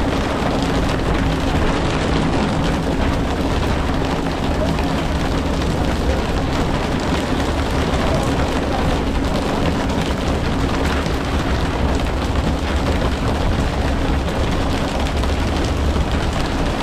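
Steady drone of a fishing boat's engine under a dense, even rush of water and spray noise, unbroken throughout.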